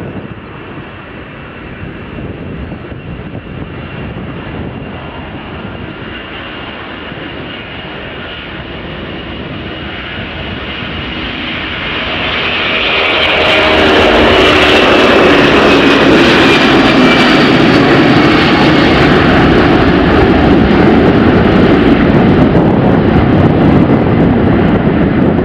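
Boeing C-17 Globemaster III's four Pratt & Whitney F117 turbofans at takeoff power through the takeoff roll and climb-out. A distant jet rumble swells to a loud jet noise about halfway through as the aircraft passes, with a high whine falling in pitch.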